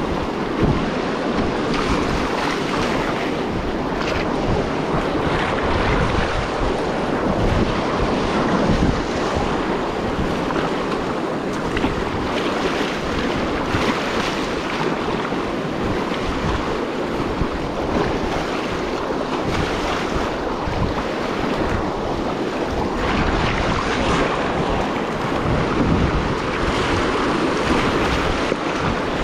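Steady rushing of fast river current, with wind buffeting the microphone.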